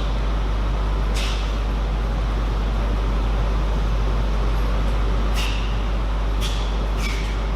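Table tennis ball clicks off bats and table: one click about a second in, then a rally of four quick hits near the end. Under them runs a loud, steady low hum.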